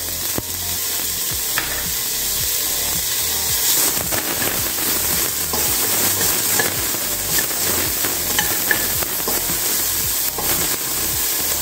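Finely chopped onion sizzling in hot oil in a stainless steel pot, stirred with a wooden spoon that scrapes and taps against the bottom of the pot over a steady frying hiss.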